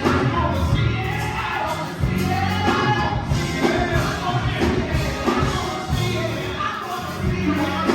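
Gospel music: voices singing over a band with a strong bass line.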